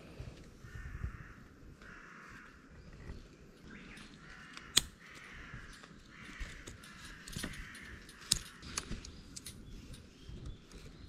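A crow cawing again and again, harsh calls one after another throughout. Close by, rope and a carabiner being handled make scattered sharp clicks and rustles, the loudest click just before halfway.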